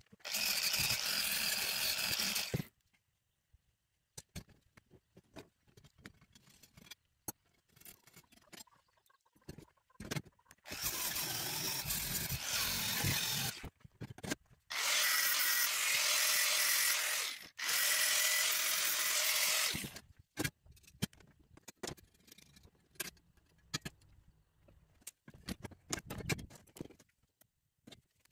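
A metalworking power tool running in four bursts of two to three seconds each, with scattered clicks and knocks of metal being handled between them.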